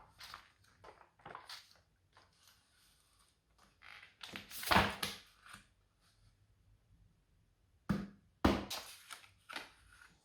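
Packaging being handled and opened: irregular rustling, crinkling and scraping, loudest about halfway through, then two sharp knocks near the end.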